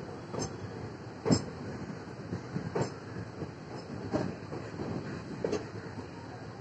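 A moving train's wheels running over rail joints, heard from aboard: a steady rolling rumble with a sharp clack about every second and a half.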